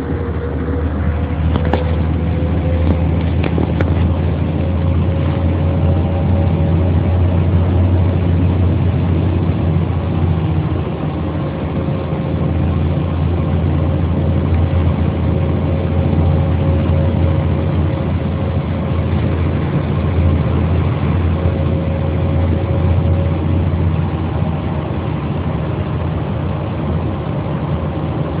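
Mercedes-Benz O 405 bus's straight-six diesel engine running steadily with a deep hum, a steady whine on top that rises slightly in pitch. A couple of faint clicks sound in the first few seconds.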